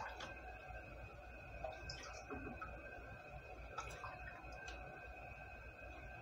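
A few scattered light clinks of a spoon against glass canning jars and a metal pot as water is spooned into the jars, over a faint steady hum.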